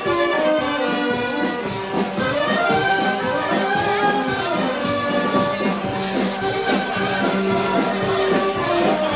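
Street wind band of clarinets, saxophones and brass playing a tune with a steady beat.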